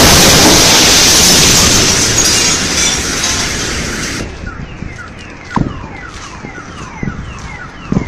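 Shock wave from the Chelyabinsk meteor airburst: a sudden, extremely loud blast that overloads the microphone and dies away over about four seconds. Car alarms then wail, set off by the blast, with rapid repeated falling tones and a few short knocks.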